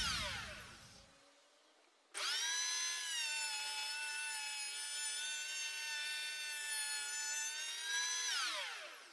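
Inverted Einhell electric hand planer, used as a benchtop jointer, spinning down as it is switched off. About two seconds in it is switched on again, its motor and cutterhead whine rising quickly to a steady pitch. Near the end it is switched off and winds down with a falling whine.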